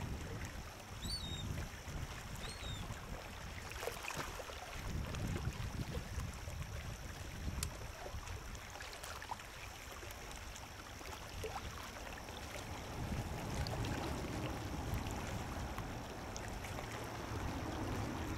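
Water and wind sounds around a small fishing boat on a lake: an uneven low rumbling wash with light splashes and clicks. A few faint high chirps come in the first few seconds.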